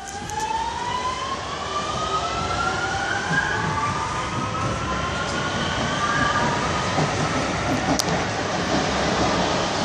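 Metrovalencia electric train pulling away: the traction motors' whine rises steadily in pitch as it accelerates, over a growing rumble of wheels on rail. A single sharp click about eight seconds in.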